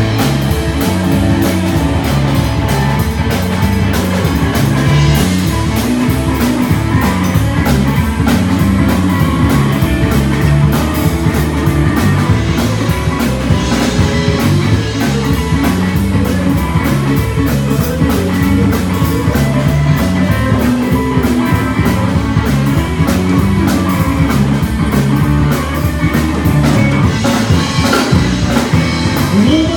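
Live blues band playing an instrumental break of an up-tempo jump-jive swing tune, with guitar over drum kit and bass keeping a steady beat; no singing.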